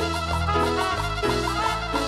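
Cumbia band music led by trumpets over a steady bass line.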